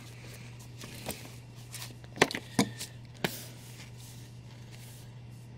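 Comic books being handled and pulled from a cardboard shipping box: a few short paper and cardboard rustles and taps, the loudest about two seconds in, over a steady low room hum.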